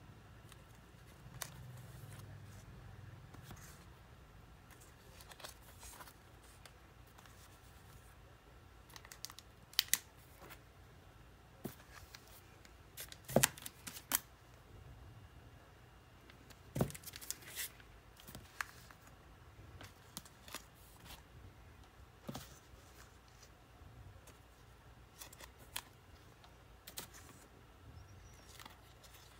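Vinyl LP jackets in plastic outer sleeves being flipped through by hand: scattered soft clicks, taps and crinkles of plastic as each record is tipped forward, with the loudest cluster of clicks about halfway through.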